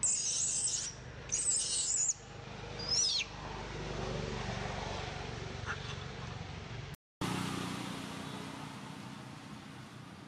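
Baby long-tailed macaque crying: two loud, high-pitched shrieks of about a second each, then a shorter third cry about three seconds in.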